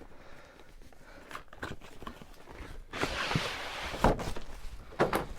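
Keyboards being handled and shifted on a desk: a sliding scrape about three seconds in, with sharp knocks about a second apart near the end as they are set down.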